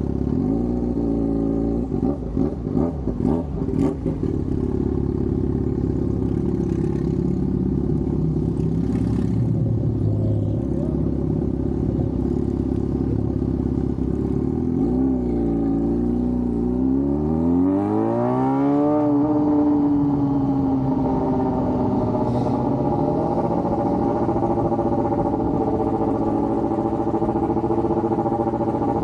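Yamaha FZ6 Fazer 600's inline-four engine running while riding. About fifteen seconds in its pitch dips briefly, then rises steadily for a few seconds as it accelerates and holds the higher pitch.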